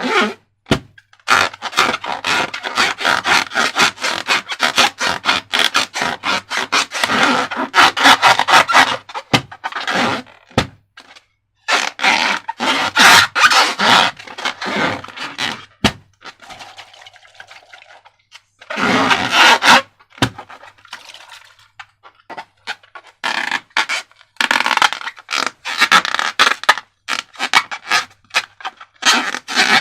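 Hands working slime and a rubber balloon: sticky clicking, crackling and scraping in spells with short pauses.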